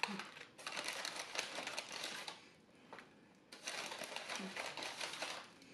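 Paper takeout bag rustling and crinkling as a hand rummages inside it, in two bouts of about two seconds each with a short pause between.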